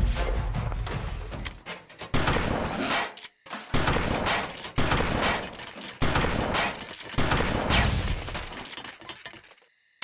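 Series of pump-action shotgun blasts, about six, one every second or so, each a sudden bang that trails off.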